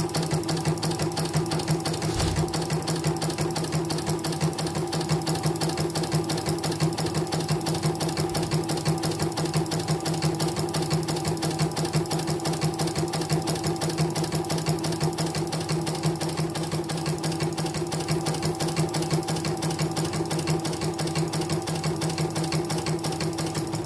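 CNY portable computerized embroidery machine stitching at a steady fast rhythm: needle clatter over a steady motor hum. It makes an extra noise as the hoop moves left and right, which the repairer puts down to a bent X-axis shaft.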